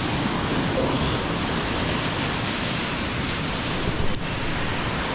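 Steady rushing of a waterfall, an even noise with no pauses, with one short click about four seconds in.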